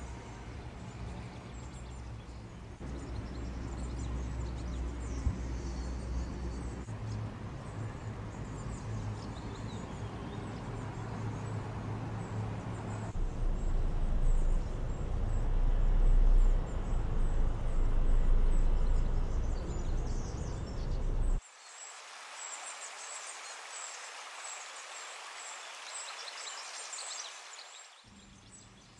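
Outdoor background noise with a heavy low rumble that swells through the middle. About three quarters of the way through the rumble drops away suddenly, leaving a thinner hiss with faint high chirps.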